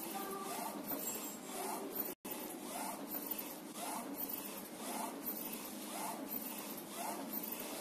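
BYC A3 UV flatbed printer printing: the printhead carriage shuttles back and forth, its drive whirring up with each pass about once a second, over a steady hum. The sound cuts out completely for an instant about two seconds in.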